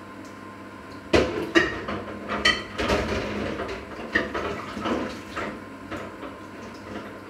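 Dishes and metal kitchenware clattering in a sink as they are handled and washed: a run of uneven knocks and clinks starting about a second in, one with a short metallic ring.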